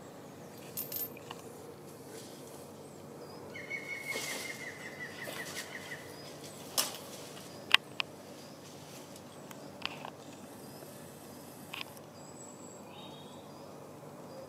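Garden ambience over a low steady hum: a bird gives a rapid trill about four seconds in, with a few small chirps later. A handful of sharp clicks or knocks stand out, the loudest two close together in the middle.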